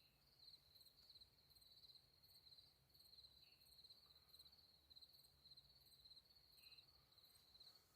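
Near silence with a faint, steady, high-pitched insect trill like a cricket's, and two faint short chirps.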